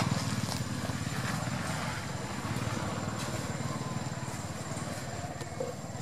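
A low, steady motor rumble, like a small engine running, with faint scattered clicks over it.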